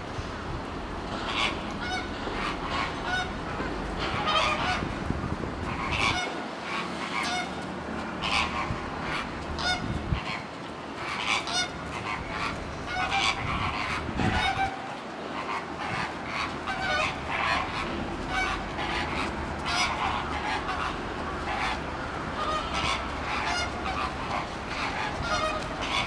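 Birds calling over and over: short, separate calls a few each second, continuing throughout, over a steady low background rumble.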